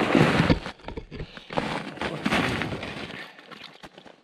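Snow crunching and handling noise as a person kneels in the snow at an ice-fishing tip-up and grabs it: irregular bursts, heaviest at first, fading away after about three seconds.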